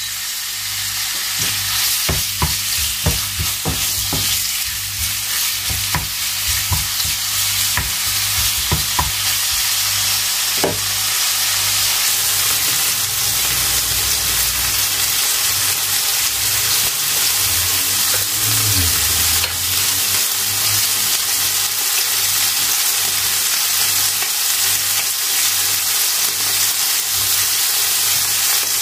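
Food frying in a pan, a steady sizzle, with clicks of a utensil against the pan scattered through roughly the first ten seconds.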